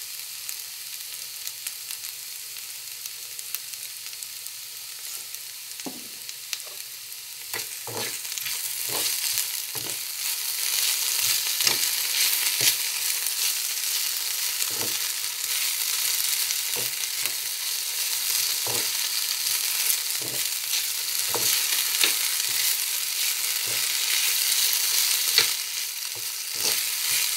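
Julienned potato strips frying in hot oil in a frying pan: a steady sizzle that grows louder about eight seconds in. A metal spoon stirring the potatoes knocks and scrapes against the pan every second or two.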